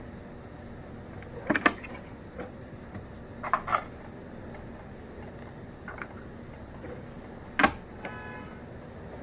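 A gold bangle knocking and clinking as it is handled and set down in the sample chamber of a Niton DXL benchtop XRF analyser, over the instrument's steady hum. There are two pairs of knocks early on and a single loudest knock a little before the end, followed by a brief tone.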